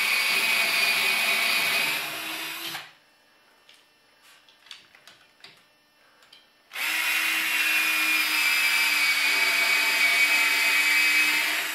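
Cordless drill with a 3/16-inch bit boring pilot holes up into wooden ceiling studs, at a steady speed. It winds down about two seconds in, a few seconds of faint clicks and handling follow, and then it starts again sharply about seven seconds in and keeps drilling.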